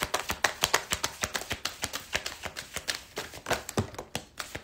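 Deck of tarot cards being shuffled by hand: a fast, uneven run of soft card slaps and clicks, several a second.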